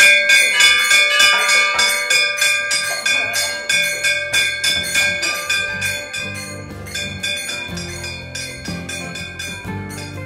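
Small brass hand cymbals (kartal) struck in a fast, steady rhythm, about four clashes a second, each one ringing on. About four seconds in, the low tones of a khol drum join underneath, and the cymbals grow a little softer.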